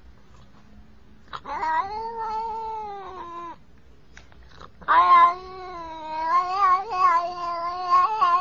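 Domestic cat meowing in two long, drawn-out calls: the first lasts about two seconds, starting over a second in; the second starts about halfway through, runs longer and wavers up and down in pitch.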